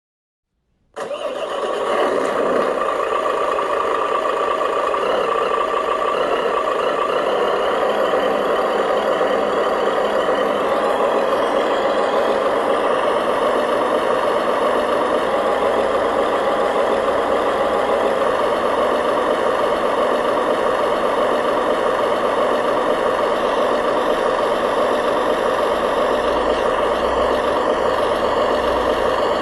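Remote-control construction model's motor running steadily, cutting in abruptly about a second in after a moment of silence.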